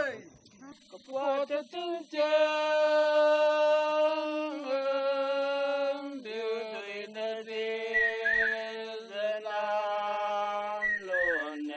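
Slow, chant-like singing: a voice holds long steady notes of a few seconds each, moving to a lower note about two seconds in and again around six seconds. A few short high chirps come through in the second half.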